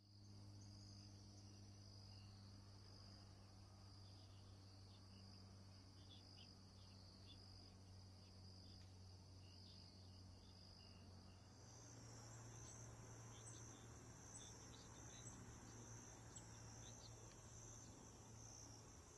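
Faint background insects trilling: a steady, high-pitched drone that shifts higher about two-thirds of the way through, over a faint low hum.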